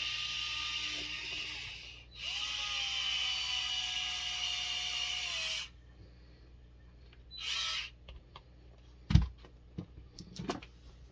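Small cordless electric screwdriver driving screws into plastic RC wheel parts in two long runs, its whine dropping in pitch as the second screw seats, then a short third burst. Near the end a loud knock and a few clicks of parts being handled and set down.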